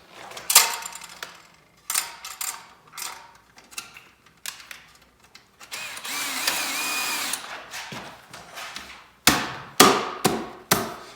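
Metal hose clamps being fitted around a carbon fiber exhaust pipe guard: scattered clicks and knocks. Midway a small power tool, such as a drill, runs steadily for about a second and a half. Several sharp, loud knocks follow near the end.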